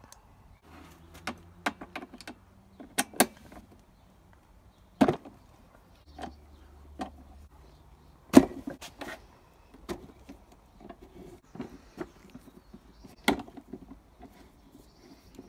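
Scattered clicks and knocks of a socket wrench working on bolts and of the hard plastic seat-area bodywork of a Yamaha Aerox scooter being handled. The sharpest knock comes a little past halfway.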